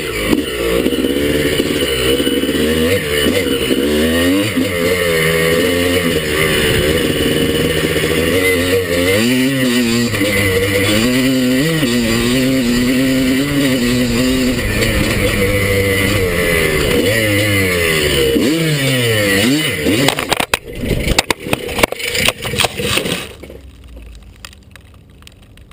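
Kawasaki KDX200 two-stroke dirt bike engine revving up and down as it is ridden, heard through a helmet camera. About twenty seconds in the engine note breaks up into a few seconds of loud irregular knocks and clatter as the bike crashes, after which the sound drops to much quieter.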